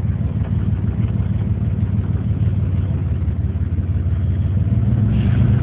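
Straight-piped exhaust of a 1991 Chevrolet S-10 pickup, a steady low drone while driving at low speed. It grows a little louder and higher near the end as the engine picks up.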